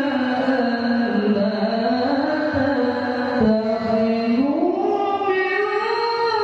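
A man reciting the Quran in melodic qori style into a handheld microphone, holding long, ornamented notes. The pitch sinks over the first two seconds and climbs higher from about four seconds in.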